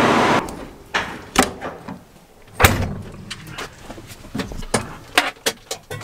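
A steady machine noise stops about half a second in. Scattered clicks and knocks follow: a vehicle cab door and its latch being worked as someone climbs in, with one heavier thump about two and a half seconds in and a quick run of clicks near the end.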